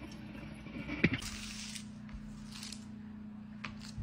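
A sharp clack about a second in, then short dry crackling rustles of papery onion skin being peeled by hand, over a steady low hum.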